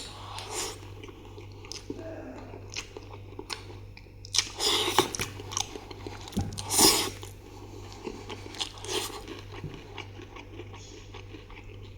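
Crispy fried chicken being bitten and chewed close to the microphone: a run of crunches, with the loudest bites about four and a half and seven seconds in.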